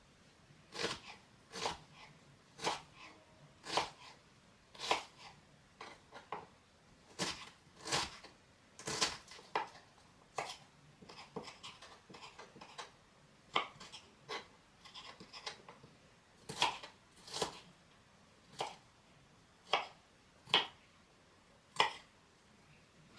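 Kitchen knife chopping food on a cutting board: separate sharp knocks, irregular and roughly one a second, with lighter, quicker taps in the middle.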